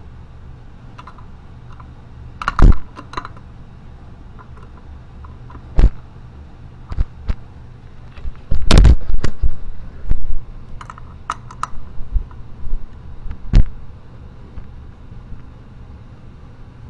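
Scattered metal clicks and clunks of a tool working the belt-deflection adjuster on a 2015 Ski-Doo Summit 800 E-TEC snowmobile's clutch, with the loudest clatter about nine seconds in, over a steady low hum.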